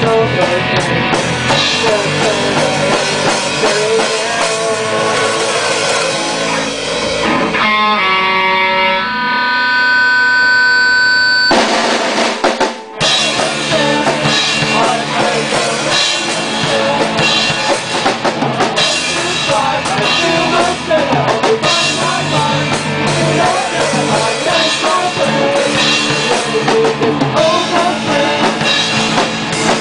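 A drum kit played live with a band. Around eight seconds in the band holds long sustained notes for a few seconds, and there is a brief break just before 13 s before the groove picks up again.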